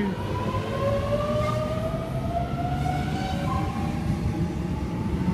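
Sydney Trains double-deck electric train pulling away from the platform: its traction motors give a whine that rises slowly in pitch as it gathers speed, over a steady low rumble of the wheels on the rails.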